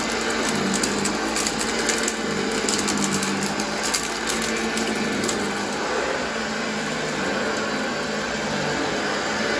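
Hoover Junior upright vacuum cleaner running steadily with a constant motor hum as it is pushed over a shag rug, sucking up sawdust, with scattered small clicks in the first few seconds.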